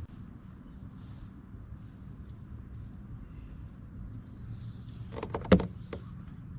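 Insects, crickets or the like, humming steadily in the background. About five seconds in comes a short cluster of sharp knocks and clicks.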